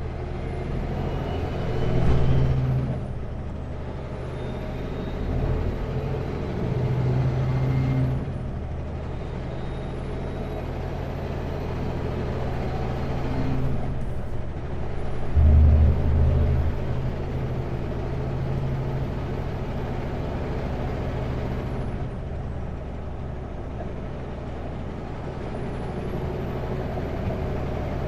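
Heavy truck's diesel engine running while driving, heard from inside the cab, its low drone swelling a few times. A high thin whine falls away and comes back about four times.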